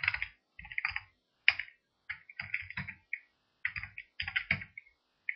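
Computer keyboard being typed on in short, irregular bursts of keystrokes with brief pauses between them, as a terminal command is entered.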